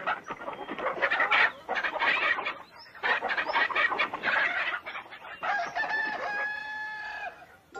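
Cartoon chickens squawking and clucking in a frantic flurry as they scatter, then one long drawn-out call about five and a half seconds in.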